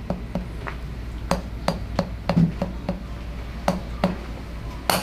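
A chiropractic adjusting tool tapping on the patient: about a dozen short, sharp clicks at irregular spacing, some louder than others.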